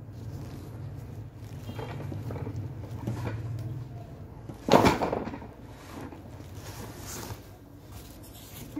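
Handling of a corrugated cardboard shipping box bound with plastic strapping as it is opened: rustling and scraping, with one loud, sharp noise about five seconds in.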